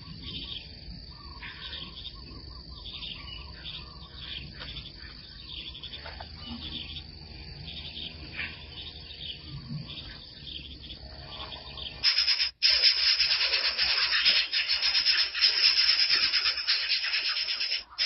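Faint insect drone and scattered small-bird chirps. About twelve seconds in, this gives way abruptly to a much louder, harsh hissing noise that runs on to the end.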